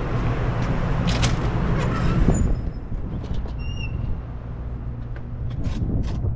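Steady low rumble and hiss of a covered truck loading dock, changing to a quieter, thinner background about two and a half seconds in as the recording moves outdoors. A few faint short high chirps and scattered clicks sound over it.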